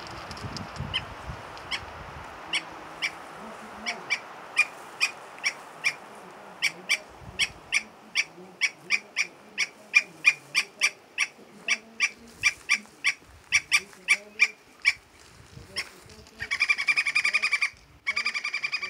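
Andean flicker calling: a long series of short, sharp notes, sparse at first, then settling into a steady run of two to three a second. Near the end it breaks into a rapid chattering trill in two bursts.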